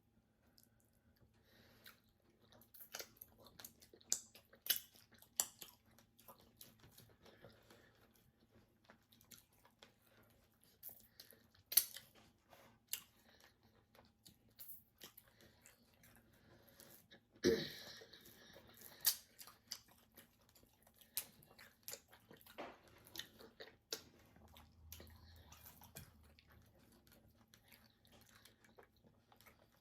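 Close-up mouth sounds of people eating: chewing and lip smacks, with scattered sharp clicks and one heavier knock a little past halfway.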